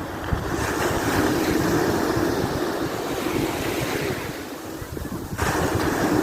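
Sea surf washing onto the shore, with wind rushing over the microphone. The noise swells, eases about four to five seconds in, then comes back abruptly near the end.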